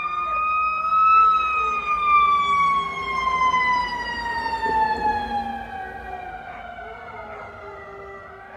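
A dog howling in one long, drawn-out note that rises to a peak about a second in, then slowly slides down in pitch and fades.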